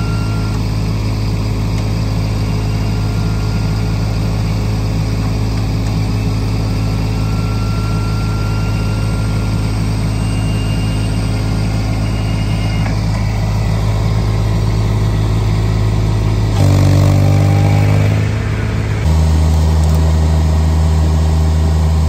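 Baumalight mini skid steer's engine running steadily. Near the end its sound changes abruptly, wavering for a couple of seconds, then settles at a deeper pitch.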